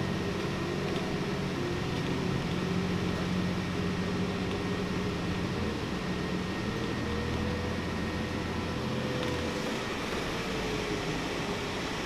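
Articulated city bus's engine and drivetrain running, heard from inside the passenger cabin. A whine slowly rises and then falls off about three-quarters of the way through, as the low engine note drops away.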